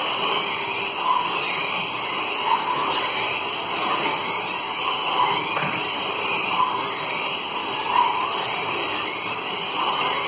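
1/24-scale slot cars lapping a multi-lane slot track, their small electric motors whining and rising and falling in pitch over and over as the cars speed up and brake.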